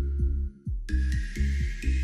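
Electronic background music with a heavy, pulsing bass beat and sustained high synth tones, which shift to a new pitch about a second in.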